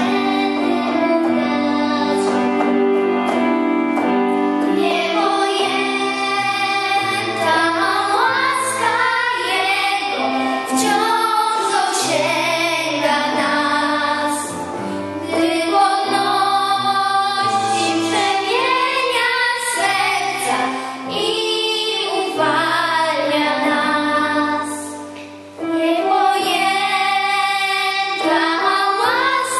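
Children singing a Polish religious song into microphones over an instrumental accompaniment: a girl's solo voice with a small children's backing chorus of three singers.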